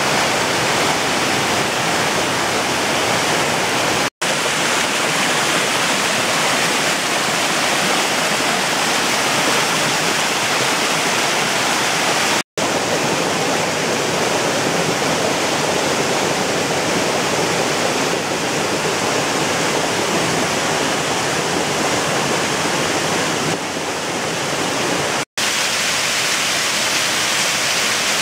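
Mountain torrent cascading over rocks in a small waterfall: a steady, loud rush of falling water. It cuts out for a split second three times.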